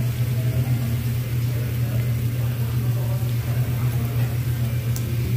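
Steady low mechanical hum, like a ventilation exhaust fan running, with faint background voices.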